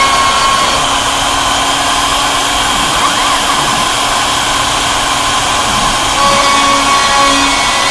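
Homemade CNC router running a cut: the RotoZip spindle's steady whine as the bit cuts, with a few steady tones from the machine that drop out and come back as it moves.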